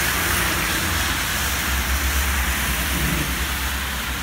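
Heavy thunderstorm rain pouring steadily, with a low rumble of thunder that swells about two seconds in.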